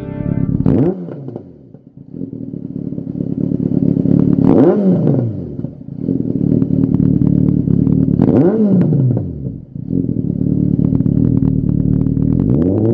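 Yamaha XJR1300's inline-four engine idling through a Lextek XP13C carbon-fibre aftermarket silencer, with the throttle blipped three times about four seconds apart. Each rev climbs and drops back quickly to idle, and a fourth rev begins near the end.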